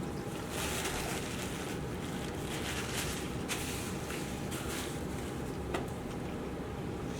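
Close-miked chewing and crunching of fast food in a few short bursts, over a steady low rumble, with one sharp click near the end.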